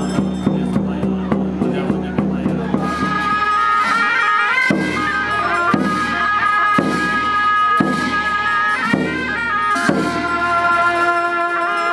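Tibetan monastic music: a pair of gyaling, double-reed shawms, playing a reedy, wavering melody while a large nga frame drum is struck about once a second. Before it, about three seconds in, a different music with quick regular ticks over a low steady hum gives way to the shawms and drum.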